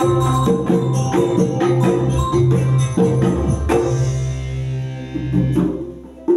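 A small live band of electronic keyboard, acoustic guitar and hand percussion playing a rhythmic piece with a steady bass line. Nearly four seconds in the piece ends on one final struck chord that rings and fades away, and the playing starts again right at the end.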